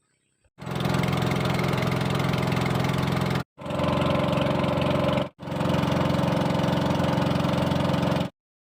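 An engine running steadily, heard in three stretches that cut off abruptly, as if clips were joined together.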